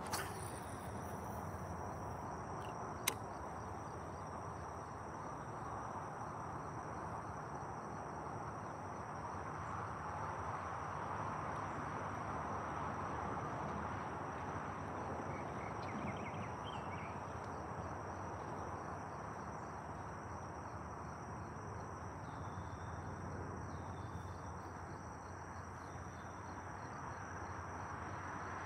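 Insects trilling steadily at a high pitch over an even outdoor background hiss, with one sharp click about three seconds in.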